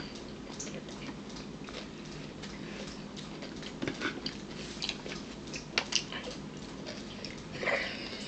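Eating sounds at a dinner table: scattered small clicks and taps of utensils and dishes with chewing, over a steady low room hum. A brief voice, a laugh, starts near the end.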